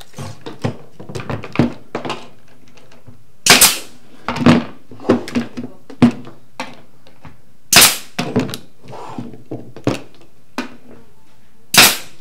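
Three loud, sharp cracks, spaced about four seconds apart, among lighter clicks and knocks of tools being handled on a cabinet top.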